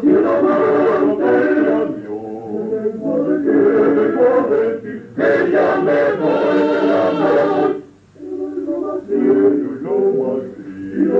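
Basque male vocal octet (otxote) singing in harmony, with sustained sung phrases and a short pause between phrases about eight seconds in.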